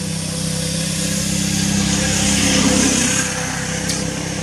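A motor vehicle engine running steadily, swelling to its loudest about three seconds in and then fading.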